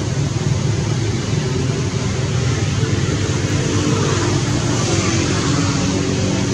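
Steady background noise: a low rumble with a hiss, and a faint hum that grows stronger about halfway through.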